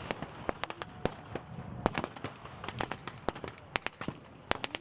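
Small arms firing blanks in an irregular, rapid crackle of single shots, several a second, some louder and sharper than others.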